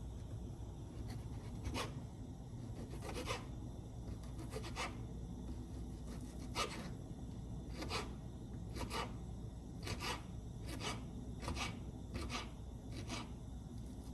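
Kitchen knife cutting chorizo on a cutting board: a series of irregular cuts, each ending in a sharp tap on the board, roughly one a second, over a steady low hum.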